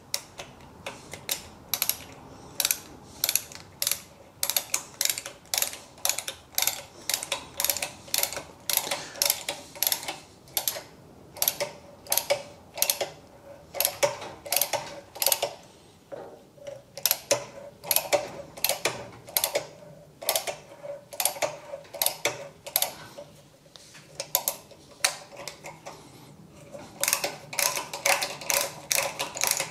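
Ratcheting tap handle clicking in quick, regular runs, several clicks a second, as a tap is worked back and forth by hand, cutting a new thread in soft aluminium.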